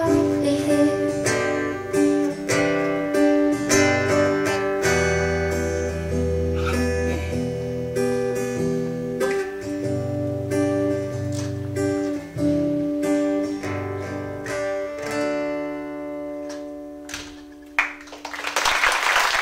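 Solo acoustic guitar playing the song's closing instrumental passage: picked notes and chords ringing out, sparser and softer toward the end. Audience applause starts about a second and a half before the end.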